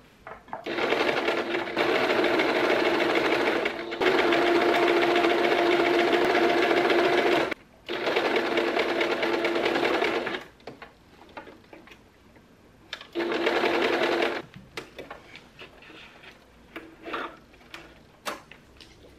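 Domestic electric sewing machine stitching fabric along a pinned zipper: one long run of about ten seconds broken by three brief stops, then a short burst a few seconds later. Light clicks of handling follow.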